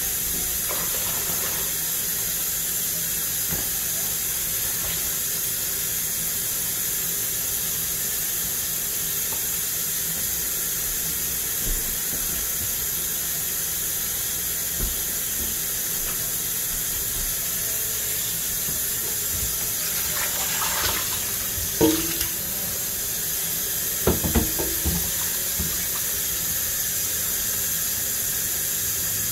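Kitchen faucet running steadily into a sink filling with soapy water. About three-quarters of the way in there are a few knocks and clunks as a pan goes into the sink.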